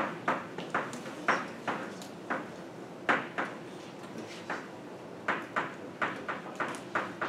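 Chalk writing on a blackboard: irregular short taps and scratches, two or three a second, with brief gaps between them.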